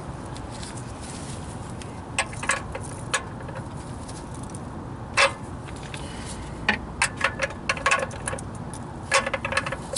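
A wrench clicking and clinking against a Fumoto oil drain valve as it is tightened into the oil pan. A few single clicks come early, then quicker runs of clicks come about seven and nine seconds in.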